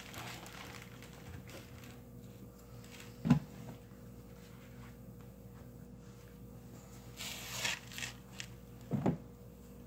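Phone handling noise over a low steady hum: a single knock about three seconds in, then rustling and light knocks near the end.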